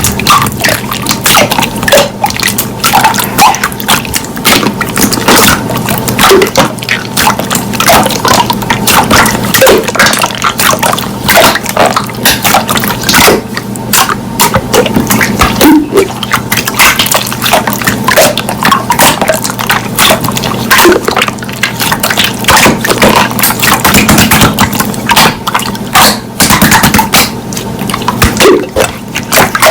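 Slime being squeezed, stretched and pressed by hand, with a dense run of wet clicking and popping and small squelches.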